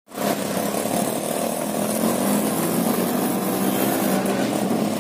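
A small auto-rickshaw engine running steadily, heard from inside the open passenger cab while riding, with a constant hiss of rain and tyres on the wet road.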